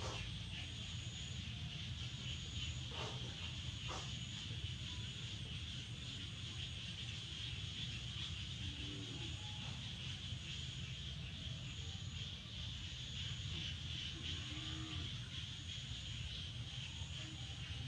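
Steady high-pitched background buzz over a low hum. Two faint, brief pitched sounds come through, one around the middle and one later on.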